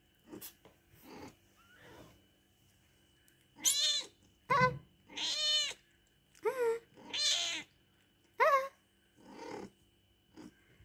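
Adult calico cat meowing repeatedly, answering a person: a few faint calls at first, then about seven louder, short, arching meows in the second half.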